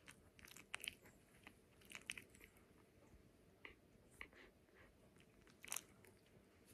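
Faint, scattered clicks of a drowsy puppy smacking his lips as he settles into sleep, in a few short clusters.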